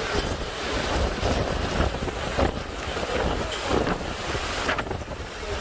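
Hurricane-force wind rushing without letup, its gusts buffeting the microphone with a heavy low rumble.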